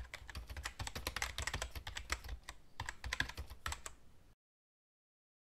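Typing sound effect: a rapid, irregular run of key clicks that stops about four seconds in.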